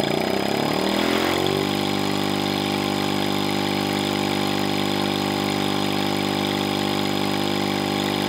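LiquidPiston rotary engine running on propane. It speeds up over about the first second and a half, then runs at a steady speed.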